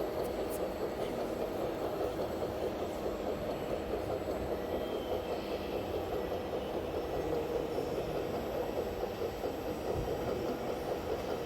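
Steady engine-like drone of RC model trucks' sound modules running, without clear changes in pitch.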